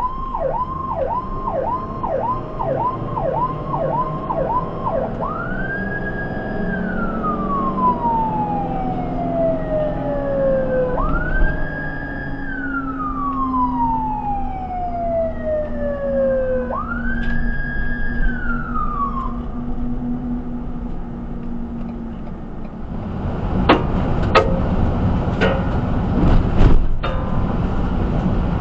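Ambulance electronic siren heard from inside the cab, running a fast yelp that switches about five seconds in to a slow wail. The wail rises quickly, holds and then falls away, three times, before the siren stops. Near the end the siren is gone and the vehicle's road rumble takes over, with several sharp knocks.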